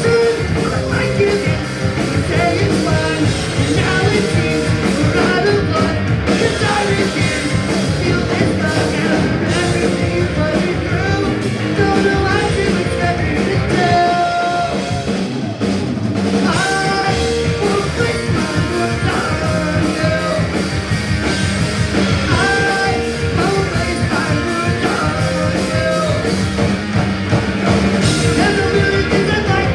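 Punk rock band playing live: guitar and drum kit with singing, at a steady full level throughout.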